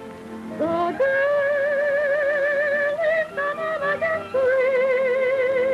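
A woman singing long held notes with a wide vibrato, with a band accompanying her. The voice slides up into the first note about half a second in and holds it, breaks into a few shorter notes in the middle, then holds a long note again.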